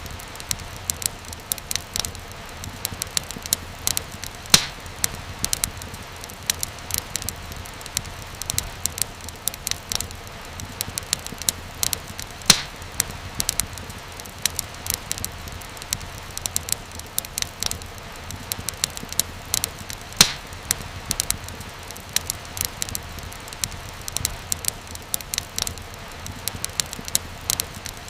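Wood fire crackling steadily, with dense small snaps and a few louder pops over a low rumble of flame.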